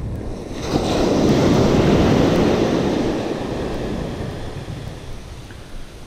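A small wave breaking and washing up the sand at the shoreline, a rushing surge that swells about a second in and dies away over the next few seconds.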